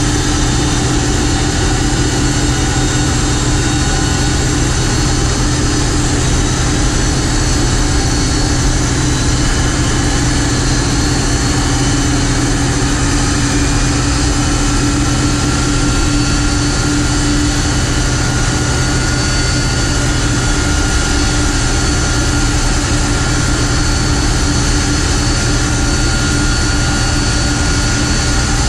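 Boeing 747-200F turbofan engines running steadily at idle: a loud, even rumble with a high, constant whine over it.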